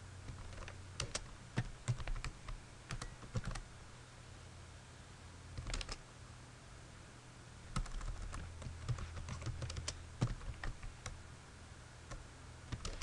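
Keystrokes on a computer keyboard: short runs of typing with pauses between them, over a faint steady low hum.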